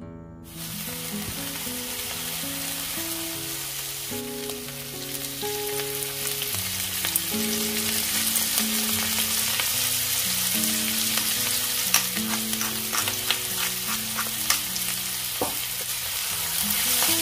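Chopped cabbage sizzling as it fries in oil in a pan, a steady hiss that starts about half a second in. A wooden spatula stirs it, with a run of clicks and knocks against the pan in the second half.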